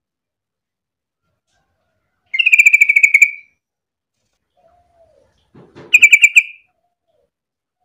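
Yellow-vented bulbul (trucukan) singing two bursts of rapid bubbling chatter, the first about two and a half seconds in and the second about six seconds in, each around a second long. A soft low rustle comes just before the second burst.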